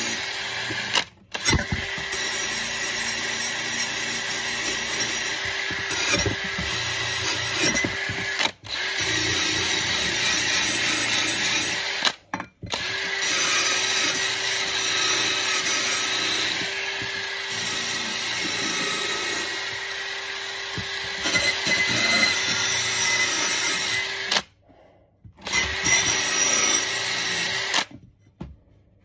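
Power drill running steadily while cleaning rust off an old steel trowel, cutting out briefly a few times and stopping near the end.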